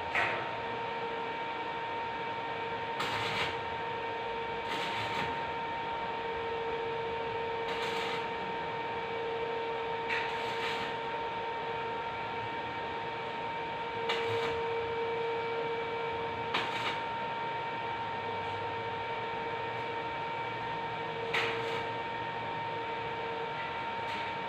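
An electric welding machine humming steadily over a background hiss, broken about eight times by short noisy bursts a few seconds apart, typical of brief tack welds on hollow steel section.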